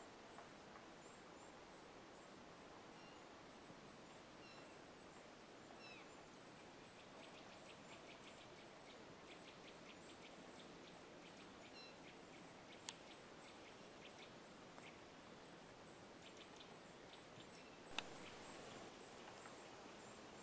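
Near silence in a snowy forest: faint background hiss with a few small, high bird chirps and a faint rapid ticking in the middle. Two sharp clicks stand out, about 13 and 18 seconds in.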